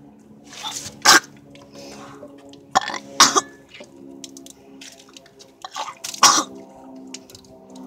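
A person coughing and hacking in harsh fits, about four loud coughs, choking on a mouthful of chocolate syrup just gulped straight from the bottle.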